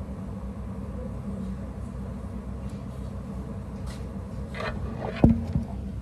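A steady low rumble in the background, then about four and a half seconds in, rustling and a sharp knock followed by a couple of smaller knocks: the recording phone being picked up and handled.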